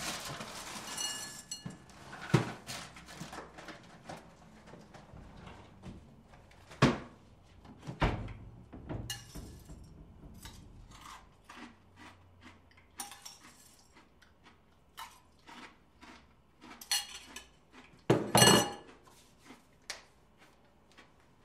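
Kitchen Foley at a sink and cupboard: dishes and utensils are handled, set down and knocked in an irregular string of clinks and knocks. A ringing clink comes about a second in, sharp knocks come at about 2, 7 and 8 seconds, and the loudest clatter comes near 18 seconds.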